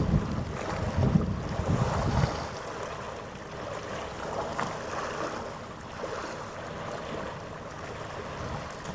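Wind buffeting the microphone in low rumbling gusts for about the first two and a half seconds, then easing, leaving a steady outdoor background with a faint hum.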